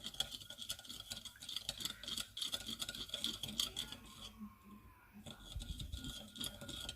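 Tamarind water and sugar being stirred with a utensil to dissolve the sugar: many quick, faint clicks and scrapes against the container, easing off briefly about four seconds in.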